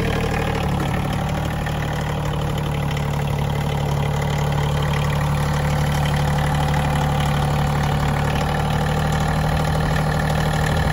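2010 Massey Ferguson 1529 compact tractor's diesel engine running steadily.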